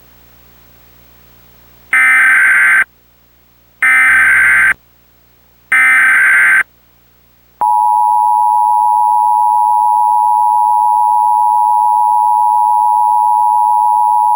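Emergency Alert System tones: three SAME header data bursts, each just under a second of harsh digital screeching, about two seconds apart. About a second after the last one, the steady two-tone EAS attention signal starts. This is the lead-in to an Emergency Action Notification.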